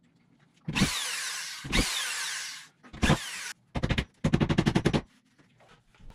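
Corded power screwdriver whirring in three short runs, each starting with a sharp hit, as it drives screws into drywall. Then comes a fast, even run of rapid knocks lasting about a second.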